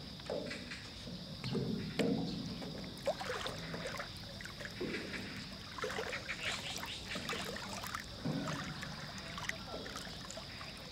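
Water lapping and sloshing against the hull of a small flat-bottomed boat as it rocks under a person's shifting steps, with short knocks now and then. A steady high-pitched whine runs underneath.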